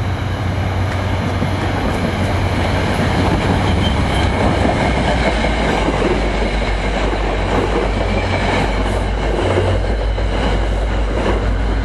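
An NJ Transit commuter train's passenger coaches passing close at speed, with a steady loud rumble and clatter of steel wheels on the rails.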